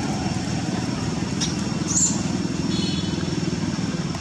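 A motor running steadily with a low, evenly pulsing rumble, with two short high-pitched squeaks about halfway through.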